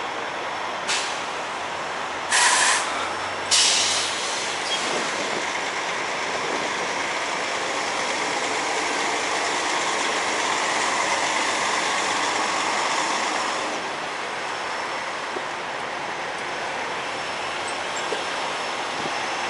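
Steady noise of semi trucks in a truck stop lot, with three short air-brake hisses in the first four seconds, the last two louder.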